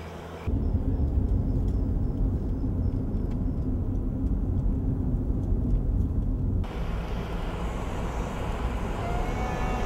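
Car driving, heard from inside the cabin: a steady low engine and road rumble starts suddenly about half a second in. A little past the middle it gives way to a thinner, hissier road noise.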